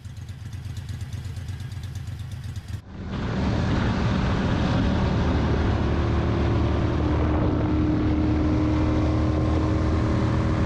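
Moto Guzzi Le Mans air-cooled 90-degree V-twin running quietly at a standstill. About three seconds in it gives way to a louder ride on the road, a steady engine note under rushing wind.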